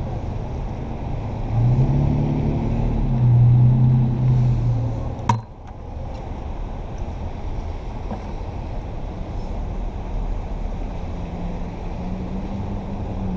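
City street traffic: a motor vehicle's engine drones as it passes, loudest from about two to five seconds in, over a steady low rumble of traffic. A single sharp click comes about five seconds in, and a fainter engine tone returns near the end.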